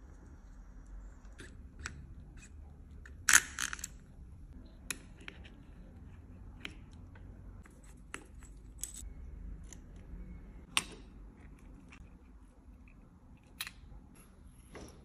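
Scattered small metallic clicks and taps of tools and parts on a baitcasting fishing reel's gear works, with a short louder rattle about three seconds in and a sharp click near eleven seconds.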